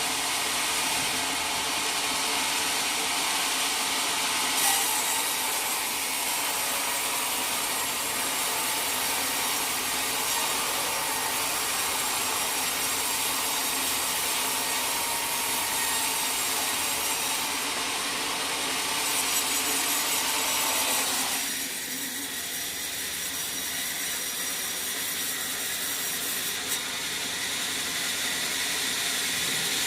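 Sawmill blade cutting lengthwise through a teak log with a steady grinding rasp. About two-thirds of the way through, the sound thins and drops a little, as the cut changes.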